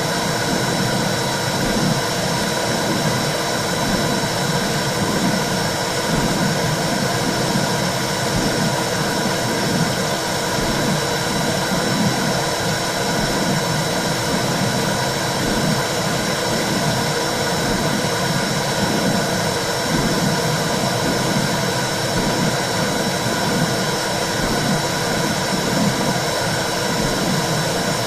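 Womb sound for calming a baby: a steady, loud whooshing rush with a soft, repeated pulse in the low range, like blood flow heard inside the uterus.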